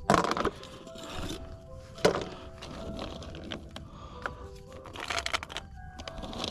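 Background music with short held notes, over a few sharp clatters of tiger nut bait and a plastic tube being handled.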